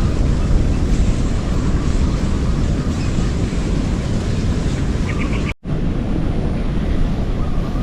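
Wind buffeting the microphone outdoors, a loud steady rumbling noise, cut off for a split second about five and a half seconds in.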